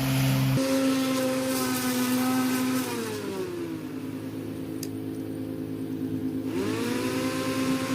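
Black & Decker LawnHog electric lawn mower's motor whirring, winding down in pitch about three seconds in and spinning back up near the end.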